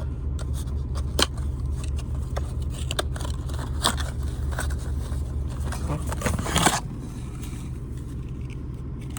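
Small keys and their packaging being handled: a few sharp clicks, and a brief crinkling scrape about six and a half seconds in. A steady low hum runs underneath and drops away at the same moment.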